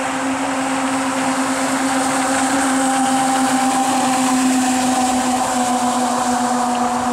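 Electric jet drive of a DIY jet kayak running at speed: its motors spinning the water-jet impeller give a steady whine over the rushing hiss of spray off the hull.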